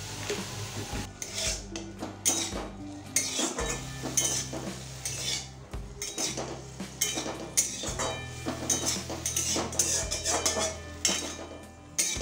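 Metal spatula stirring prawns frying in a kadai (wok), with repeated clinks and scrapes of metal on the pan over light sizzling of oil.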